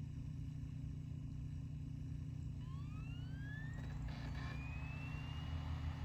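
A steady low hum, then about two and a half seconds in a whine that rises in pitch for a few seconds and levels off into a steady tone: the clamshell iBook's optical drive spinning up a disc during boot.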